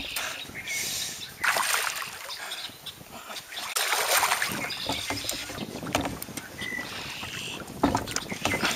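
A hooked smallmouth bass thrashing at the surface beside a canoe, with several splashes; the biggest comes about four seconds in.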